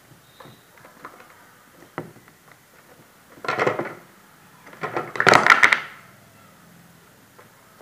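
Clear plastic jar and its snap-on plastic lid clattering as a palm squirrel pushes and pries at the lid. A short burst of rattling comes about three and a half seconds in, then a longer, louder clatter around five seconds in as the lid comes off and drops. Light scattered ticks come in between.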